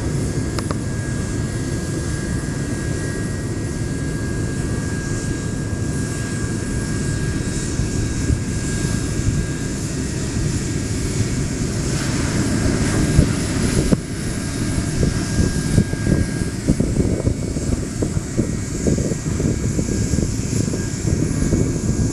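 Jet engines of a landing Embraer 190 regional jet on short final and touchdown: a steady rushing drone over a heavy, uneven low rumble.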